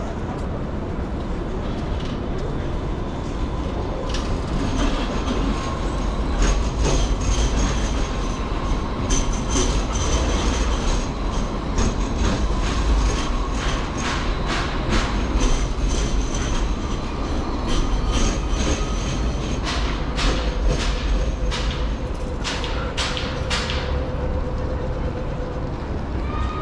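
Sydney light-rail tram running past close by: a rapid, irregular run of wheel clicks and clacks on the track, with a faint whining tone, over a steady low rumble.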